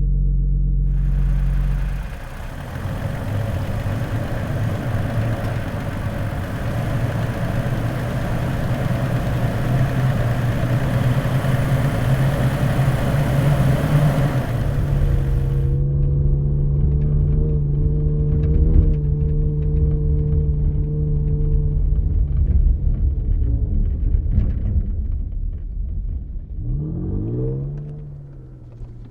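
2020 Toyota Tacoma's 3.5-litre V6 engine heard in several edited takes: a low steady run, then about thirteen seconds of driving under loud road and wind noise that cuts off abruptly, then steady running. Near the end the engine revs up quickly and settles back to a lower idle.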